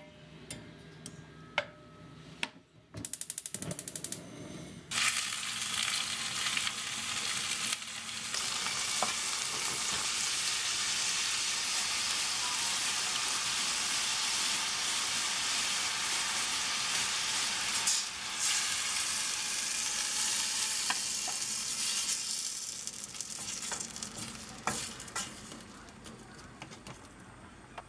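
Steady sizzling of food frying in a stainless steel pot, starting about five seconds in and dying down near the end, with a few light utensil knocks before it.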